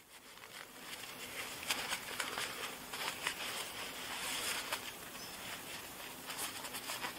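Naturehike quilted poncho rustling as its corner is bunched and worked in the hands: a continuous scratchy fabric rustle with small crackles, growing louder over the first second or so.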